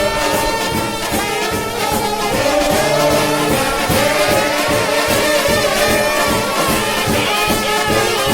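Trombone shout band playing a gospel shout tune: massed trombones holding and sliding between sustained notes over a steady beat.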